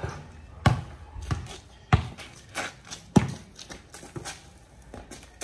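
Basketball bouncing on a hard outdoor court: three sharp bounces about a second and a quarter apart, with lighter thuds between them.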